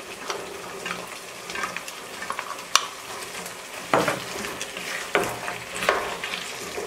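A wooden spatula stirring chickpeas, potatoes and chicken in a sizzling granite-coated pot, with the fried food crackling steadily. Several sharp knocks of the spatula against the pot come through the second half.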